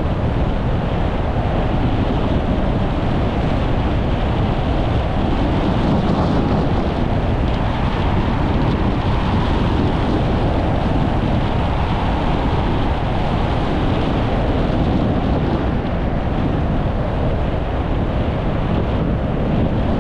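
Steady wind rushing over the microphone of a skier's camera moving downhill, mixed with the hiss of skis sliding on groomed snow.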